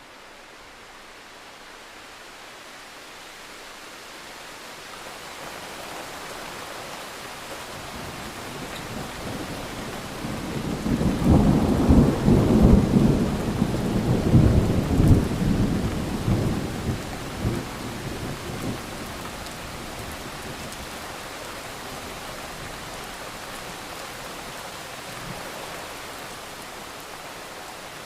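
Steady rain hiss with a long roll of thunder that builds slowly, breaks into a loud, crackling rumble about eleven seconds in, and dies away over several seconds back into the rain.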